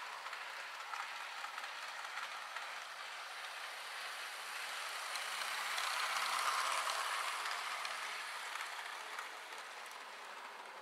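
Model train running on garden railway track: a steady rolling hiss of wheels and motor that swells as it passes close, a little past halfway, then fades away.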